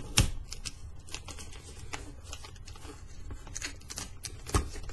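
Newspaper gift wrapping crinkling and crackling under the fingers as the end flap of a wrapped box is folded up and taped down, with two sharper taps, one just after the start and one near the end.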